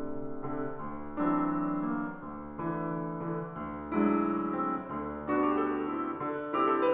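Grand piano playing the solo introduction to a krakowiak, a Polish dance piece for flute and piano: a string of chords and melody notes changing about once a second.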